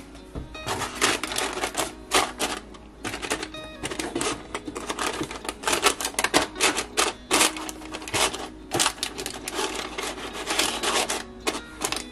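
Rapid, irregular clacking of kitchen utensil strikes, several a second with a few short pauses, over soft background music.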